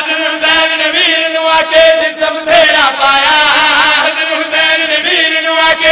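Several men chanting a Shia devotional refrain together into a microphone, loud and amplified, with a steady held note running underneath.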